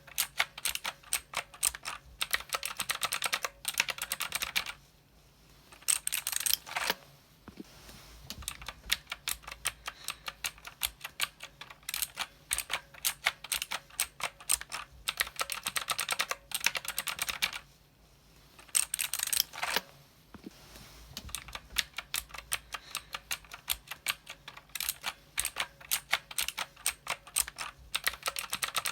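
Typing on a mechanical keyboard: fast runs of sharp key clicks, broken by two brief pauses.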